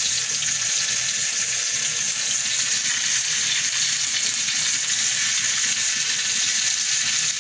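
Marinated chicken leg quarter sizzling steadily in a frying pan, an even hiss with no breaks.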